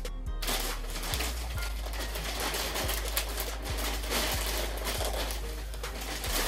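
Plastic poly mailer bag crinkling and rustling as hands pull and tug at its sealed top, struggling to open it: a dense, irregular crackle throughout.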